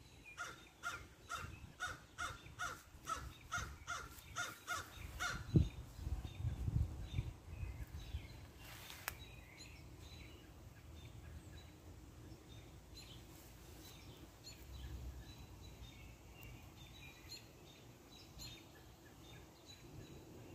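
Crow cawing in a quick, even series, about eleven calls over some five seconds, then only faint scattered bird calls. A low thump and rumble come about five and a half seconds in.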